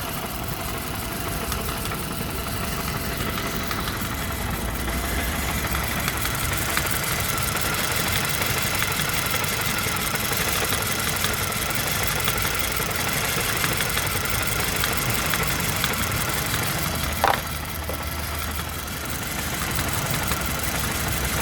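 Volvo's Ford Duratec engine idling with a misfire; the stored codes point to cylinder 2 misfiring and a fault in its ignition coil circuit. A single brief sharp sound about 17 seconds in.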